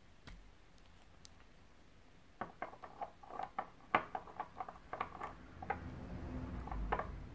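A small glass nail-polish bottle being handled and its cap unscrewed. There are a few faint clicks at first, then from about two and a half seconds in, a quick run of small clicks and taps.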